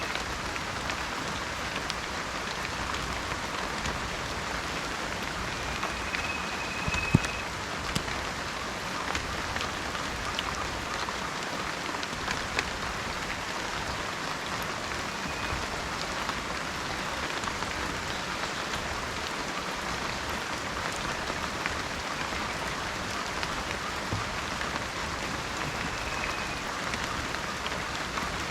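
Steady heavy rainforest rain, with many individual drops striking close by and one sharp drip about seven seconds in. A short, high, steady bird note sounds three times, faint behind the rain.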